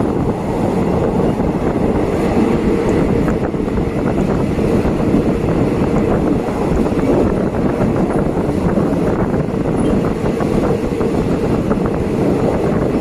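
Passenger train in motion, heard from on board: a steady rumble and rattle of the wheels running on the track.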